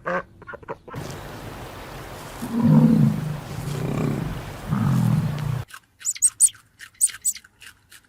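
A large wild animal gives three low, rough calls over a noisy background, in the middle seconds. A series of rhythmic duck quacks ends in the first second, and quick high chirps start near the end.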